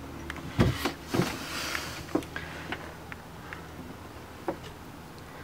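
A few light knocks and clicks, with a heavier thump about half a second in, over a faint low hum.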